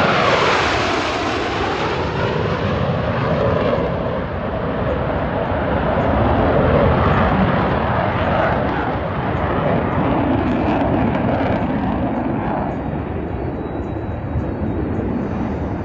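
Jet noise from Blue Angels F/A-18 Super Hornets passing overhead. A whine falls in pitch as the formation goes by at the start, then a long, loud rumble that slowly dulls toward the end.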